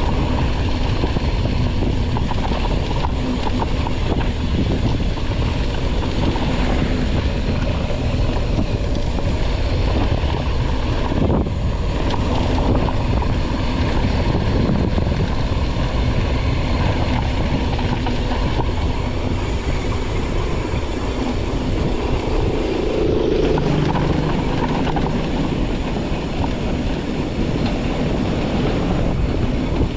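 Mountain bike riding downhill over rough ground: a steady rumble with continuous rattling.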